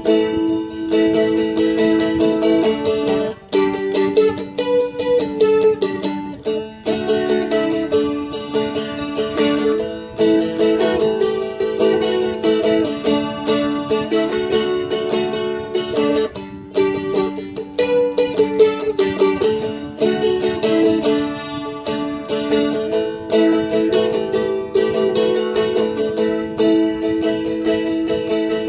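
Seagull Merlin M4, a four-string dulcimer-style instrument, strummed steadily. It plays a melody over drone strings that ring on underneath.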